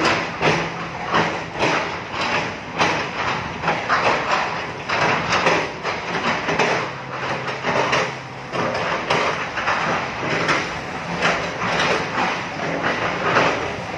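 Diesel excavator working, its engine humming steadily under a run of repeated metallic clanks and knocks, about two a second.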